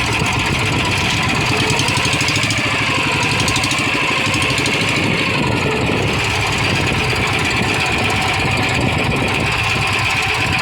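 Small engine running steadily at an even speed, with no change in pitch or level.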